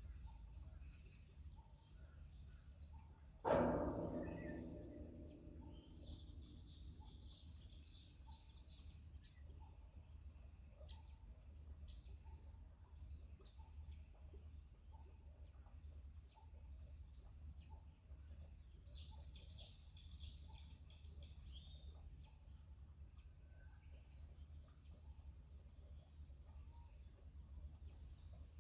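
Outdoor background with small birds chirping in quick, high-pitched bursts, busiest a few seconds in and again around twenty seconds in. About three and a half seconds in, a single sudden loud sound stands out and fades away over a second or so.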